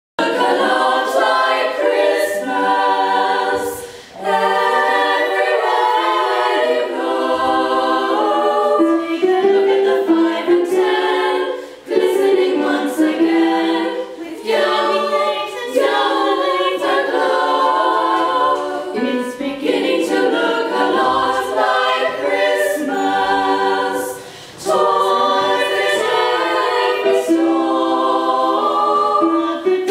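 A small group of teenage girls singing a Christmas song in harmony, held notes in several parts, with short pauses between phrases about four, twelve and twenty-five seconds in.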